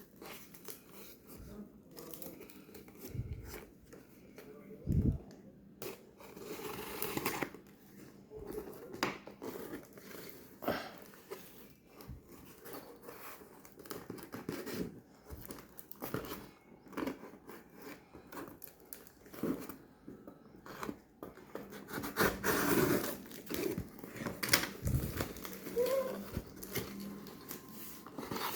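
Packaging of LED filament bulbs being handled and torn open: irregular crinkling, tearing and rustling with occasional small knocks.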